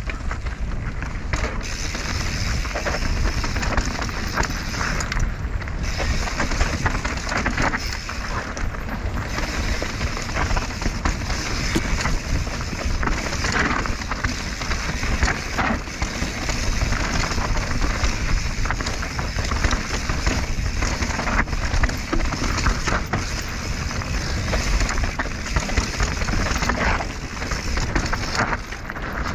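Mountain bike riding fast down dry, stony dirt singletrack: continuous tyre noise on dirt and loose stones, with frequent rattles and knocks from the bike over bumps.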